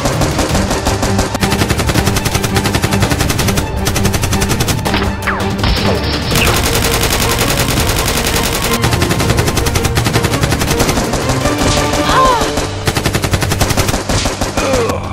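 Rapid automatic-gunfire sound effects firing in continuous bursts throughout, over background music.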